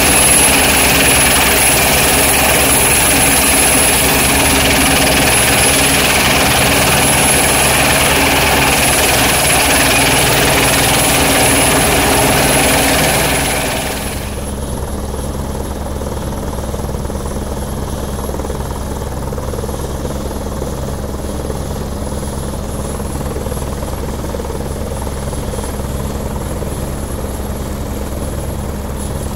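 Helicopter running on the ground with its three-blade main rotor turning: a steady, fast low beat from the rotor under a thin, high, steady whine. About halfway through, the sound drops suddenly to a quieter, steadier level.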